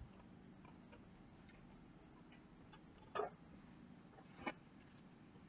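Near silence with two small clicks, about three seconds in and again a second and a half later: a screwdriver and screw being handled at a wall switch plate.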